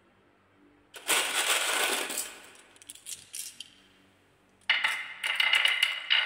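Glass marbles clinking and clattering against each other: a loud burst about a second in that dies away, a few single clicks, then steady clicking from near the end as marbles are set onto a wooden wavy slope track and knock together.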